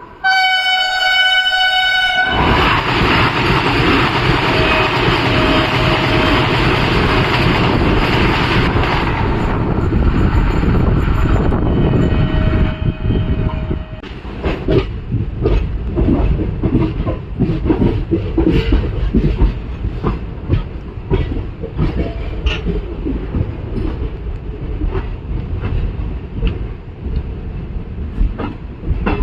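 Indian Railways locomotive horn sounding for about two seconds, then a train running past on the platform line with a loud rush of wheels and coaches. After about fourteen seconds it eases into the rhythmic clickety-clack of coach wheels over rail joints.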